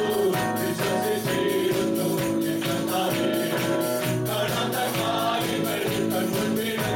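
Live worship music: a congregation or choir singing a praise song over a band, with a tambourine shaken and struck in a steady beat.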